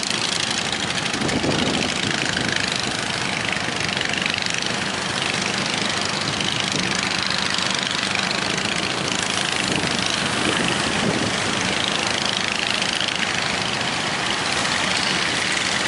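Fishing boat's engine running steadily under a loud, even rush of wind and water.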